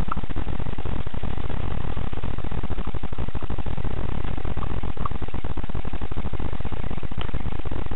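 Constant loud hiss and rumble from a cheap action camera's microphone, steady throughout, with only a few faint brief chirps heard through it.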